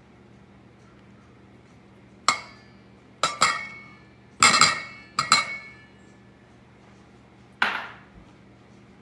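A small glass dish and a silicone spatula knock against a stainless-steel mixing bowl as sour cream is scraped out. About six sharp clinks come between two and six seconds in, each leaving the bowl ringing, then there is a single duller knock near the end.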